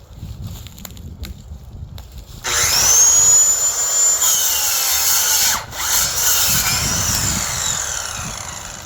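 Corded electric saw starts about two and a half seconds in and cuts wood, its high motor whine sagging and recovering in pitch under load. It cuts out briefly past the middle, then runs again and fades toward the end.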